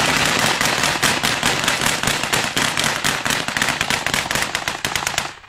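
Heavy small-arms fire from several soldiers' rifles shooting at once: a continuous rapid string of sharp shots, many a second, that stops suddenly near the end.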